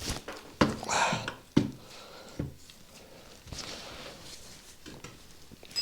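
A few light knocks and a short scrape as metal parts bump together while a Yamaha YZ125 two-stroke engine is wiggled out of its frame.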